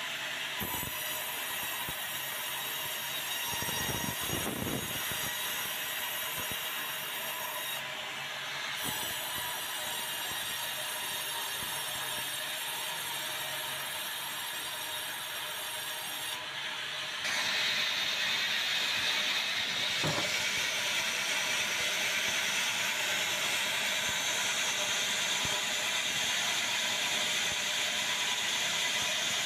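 Sawmill band saw running with a steady high whine. A little over halfway through, the noise gets louder and harsher and stays so, as the blade takes up a cut through white meranti timber.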